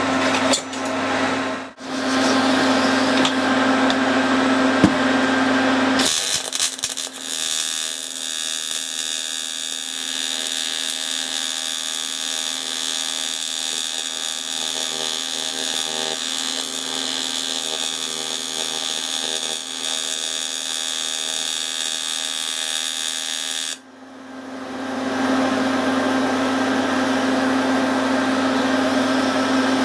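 AC TIG welding arc buzzing steadily as silicon bronze filler is brazed onto a cast iron casting. The buzz drops out briefly about two seconds in, changes tone about six seconds in, and near the end breaks off and swells back up.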